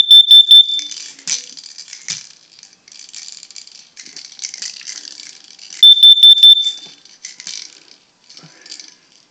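Smoke detector sounding its test alarm: two short bursts of rapid, shrill beeps, one at the start and another about six seconds later. A steady rattle runs underneath.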